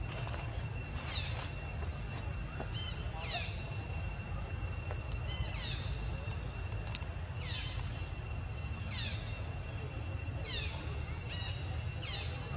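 Outdoor natural sound: a bird calling in short falling chirps about every second or so, with a few quick rattled notes, over a steady high whine and a low rumble.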